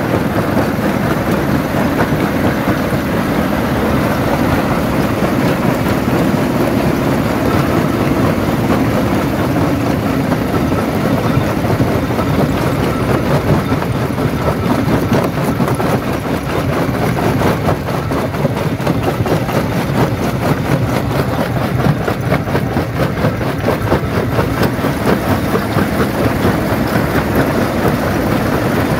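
Stone jaw crusher running, a loud continuous rumble dense with knocking and rattling as rock is broken.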